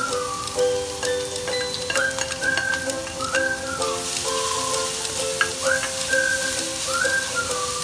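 Chopped onion sizzling in a hot non-stick wok as it is scraped off a plate and stirred with a slotted spatula, with scrapes and taps of the spatula on the pan; the sizzle thickens about four seconds in as the onion is spread and stirred. Background music with a gliding, whistle-like melody plays over it.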